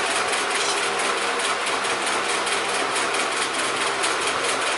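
A machine running steadily in the background, a constant whirring noise with a fast, even pulse.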